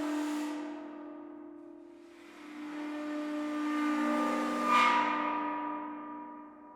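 Bergtagna 24 Note Cristal sounding several sustained ringing tones together. The tones fade away, swell again from about two seconds in with a brighter accent near five seconds, then die away.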